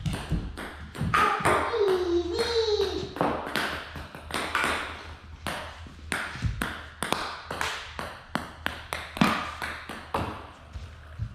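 Ping pong ball clicking off the table and paddles in a loose, irregular rally, many sharp ticks in a row. A child's voice rises and falls briefly about two seconds in.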